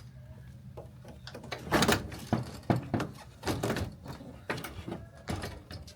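A part being pulled out of the front end of a Ford F150: a series of irregular knocks and clunks, the loudest just under two seconds in.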